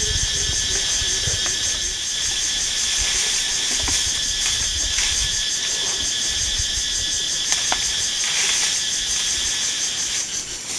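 Dense chorus of night insects: several overlapping shrill trills at different pitches, running steadily, with intermittent low rumbling from wind or handling on the microphone.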